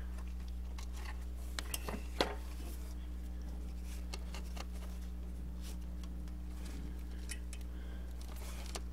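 Scattered light clicks and taps as hands work a rubber drive belt onto the engine's accessory pulleys, seating it in the grooves, with a few of them close together about two seconds in, over a steady low hum.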